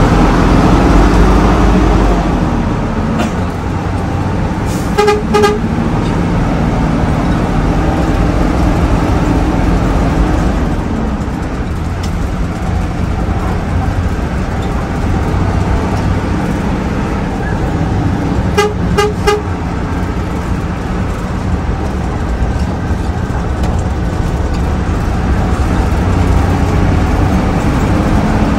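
Hino AK8 bus's diesel engine running on the road, its revs rising and falling, under steady road rumble. A horn gives a few short, quick toots twice: about five seconds in, and again around nineteen seconds.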